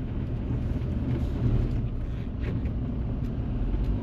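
Self-built camper van driving along a road: a steady low rumble of engine and road noise, with a few faint ticks through the middle.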